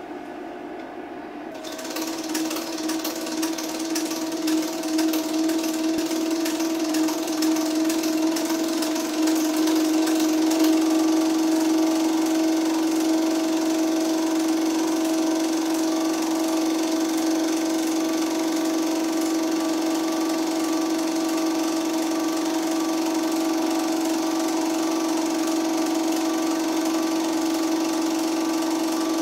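Film projector running: a steady motor hum under the fast clatter of the film-transport mechanism. The clatter starts about a second and a half in, and the sound grows louder over the first ten seconds before holding steady.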